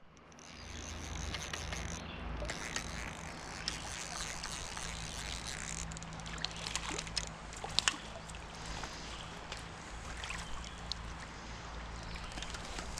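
Shallow stream water flowing and rippling around the wader as a steady rush, fading in at the start, with a few short sharp ticks scattered through it.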